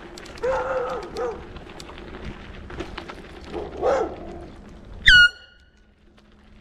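Dogs barking a few times, with small clicks and crunches from bicycle tyres rolling over gravel. About five seconds in comes one short, loud, high-pitched tone, and then the sound drops away abruptly.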